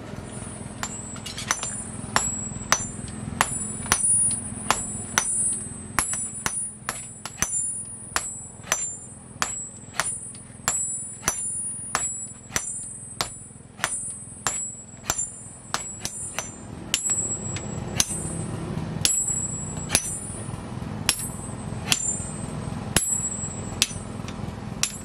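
Hammer blows on a red-hot adze-axe head held on a steel anvil, each strike with a high ringing tone. The blows come about two a second, then slow to about one a second in the last eight seconds, over a low steady hum.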